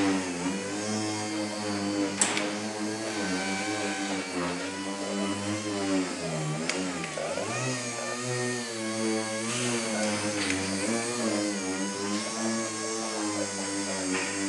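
Rotary polisher with a foam pad running against a plastic headlight lens, its motor pitch rising and falling as it is pressed and eased off. A sharp click about two seconds in.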